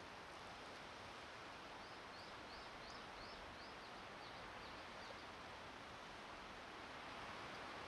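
Steady wind noise. About two seconds in, a small bird gives a quick run of about nine short high chirps over about three seconds, fading toward the end.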